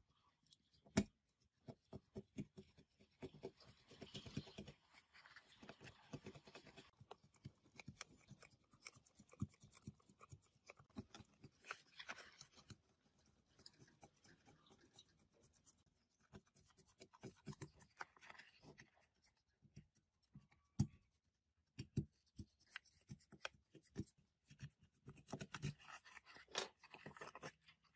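A thin metal pick scraping and prying an old paper speaker cone and its spider loose from the speaker basket: irregular scratching and crackling with small clicks, and a few sharper clicks.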